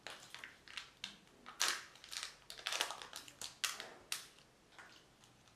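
Plastic wrapping of a Kinder Joy egg crinkling and crackling as it is torn and peeled open by hand: a quick, irregular run of sharp crackles, loudest in the middle, dying away near the end.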